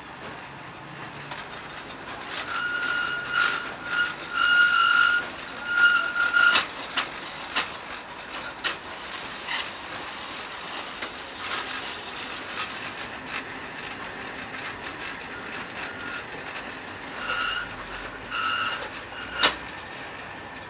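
Belt-driven wire-coiling machine winding metal wire onto a rotating mandrel, with a running rattle of clicks and knocks. High squeals come in short bursts in the first third and again near the end, and there is one loud knock near the end.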